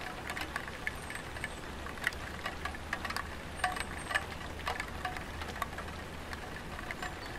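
Light rain dripping on a tiled roof: irregular single drops tapping sharply on the tiles, over a steady low hum. A few faint high chirps sound about a second in and again near the middle.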